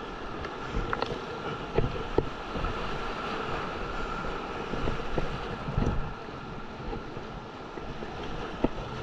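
Whitewater rushing around a plastic kayak running a river rapid, with paddle strokes splashing and a few short knocks scattered through it.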